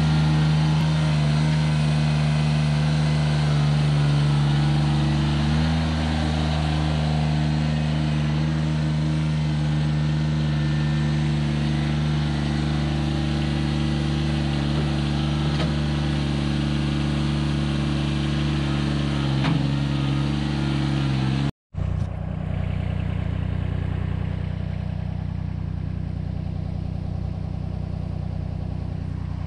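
John Deere 755 compact tractor's three-cylinder diesel engine running steadily at working throttle, with a slight rise in pitch a few seconds in. It breaks off for an instant about three quarters of the way through and carries on a little quieter.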